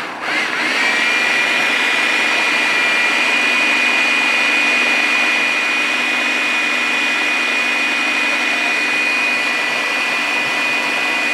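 Electric food chopper (Anex) running, grinding cooked lentils and chicken korma into a thick haleem paste so the meat breaks into fibres. The motor spins up with a rising whine about half a second in, runs steadily and loudly, and stops at the very end.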